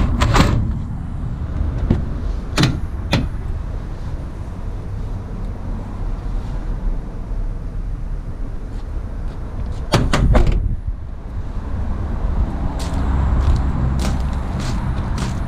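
Sharp clicks and knocks from the van's doors and catches being handled, with a short cluster of knocks about ten seconds in, over a steady low rumble.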